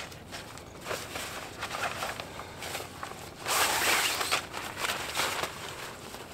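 A person moving about and handling gear at a pickup truck's open door: scattered footsteps and rustling, with one louder rasping rustle lasting about a second, a little past the middle.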